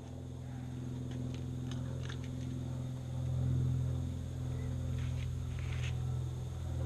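A steady low droning hum, made up of several steady pitches, with a few faint light ticks over it.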